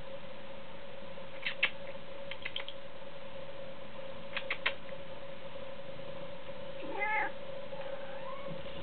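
Domestic cat giving one short meow about seven seconds in, then a softer, fainter call near the end. Earlier come three small clusters of sharp clicks, all over a steady faint hum.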